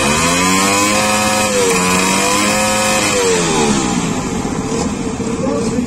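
Motorcycle engine revved sharply from idle, held at high revs for about three seconds with a brief dip, then let fall back to idle, as in an exhaust loudness test.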